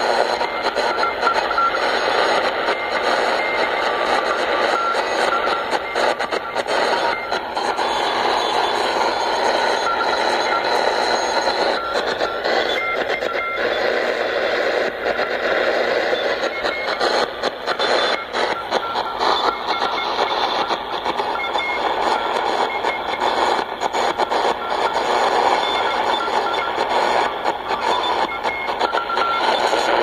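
Shortwave static and hiss from a Grundig field radio tuned around 7025 kHz, with short repeated beeping tones coming and going through the noise.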